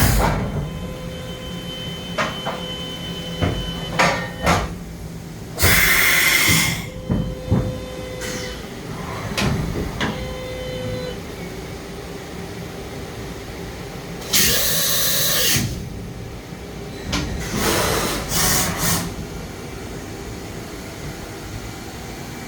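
DMG Mori NHX5500 horizontal machining center running: a steady mechanical hum with scattered clicks and knocks, broken by three loud hissing bursts of about a second each.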